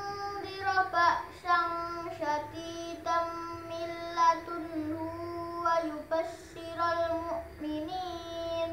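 A boy's voice reciting the Qur'an in melodic tartil style. He holds long, steady chanted notes with small ornamental turns, and short breaks fall between phrases.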